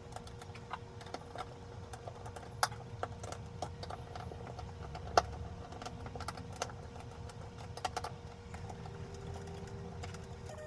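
Scattered clicks and taps of hands working wiring and small fittings inside a jet ski's hull, over a steady hum.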